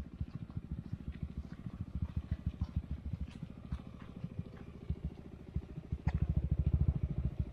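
Automatic scooter engine running at low revs, a fast, even putter that gets louder about six seconds in, with a few light knocks.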